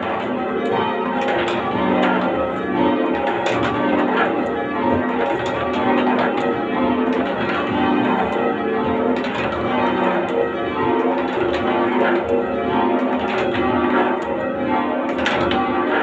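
A somewhat heavy ring of church tower bells being change rung, struck one after another in a steady, continuous rhythm, heard from the ringing room below.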